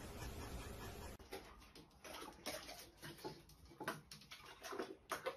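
Faint, scattered small taps and scuffs of a kitten moving about inside a porcelain toilet bowl.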